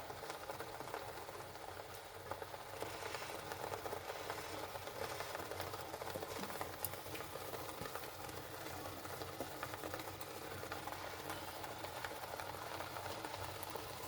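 Coarse ground spice paste frying in sesame oil in a pan, sizzling steadily with fine crackles.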